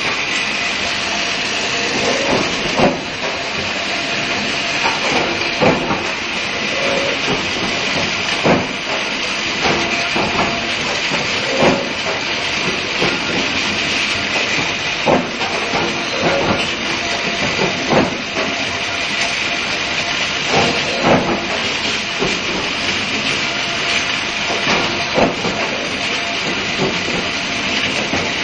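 Copper forging line with an induction billet heater running: a steady loud hiss, broken by short sharp knocks every one to three seconds as hot billets are fed and forged.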